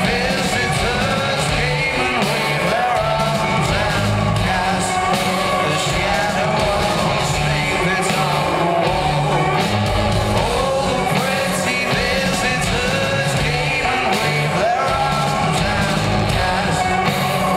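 Live rock band playing loud in a large hall, with electric guitars, bass and drums and a voice singing or shouting over them. The sound is loud and steady.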